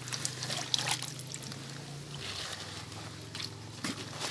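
Wet batik cloth being squeezed and rubbed by gloved hands in a tub of water glass (sodium silicate) solution, with squelches and liquid dribbling off the fabric. The fabric is being worked until it is fully soaked, the colour-locking stage of batik dyeing.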